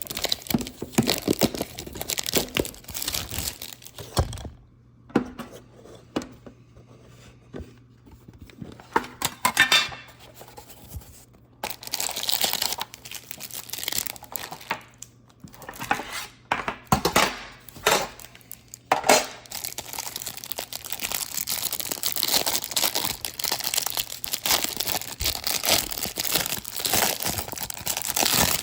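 Plastic wrapping on baseball card packaging being torn open and crinkled. It comes in irregular crackles with short pauses, then crinkles steadily through the last third.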